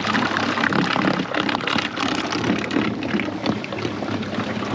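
Small aluminum boat underway with its electric trolling motor at full throttle: water rushing and splashing along the hull, with wind buffeting the microphone.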